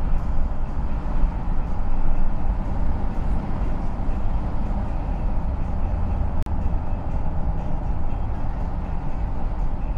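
Car driving at road speed: a steady low rumble of tyre and wind noise. A brief click with a momentary dropout about six and a half seconds in.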